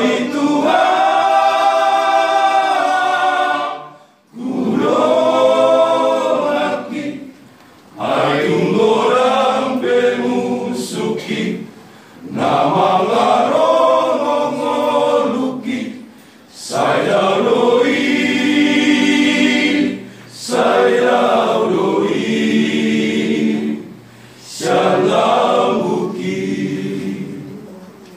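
Men's choir singing a hymn a cappella in Batak, in phrases of a few seconds with short breaks for breath between them.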